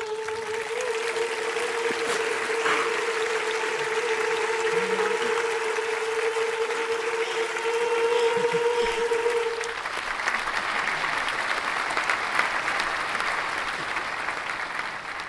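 Audience applauding, the clapping swelling over a long held note that stops about two-thirds of the way through. The applause then carries on alone and begins to fade near the end.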